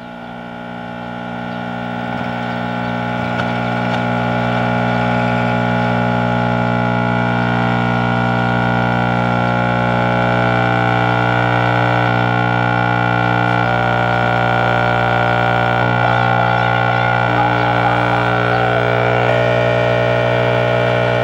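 Steady buzz from the speaker of an early-1960s Zenith Space Command black-and-white console TV, swelling over the first few seconds and then holding. It is the audio-detector buzz that Zenith sets are known for when the IF is slightly out of alignment; the owner thinks it is mostly the detector, though the two bad electrolytic capacitors could add to it.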